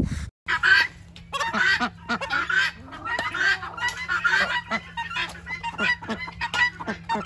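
A flock of chickens and ducks calling over one another, many short overlapping calls.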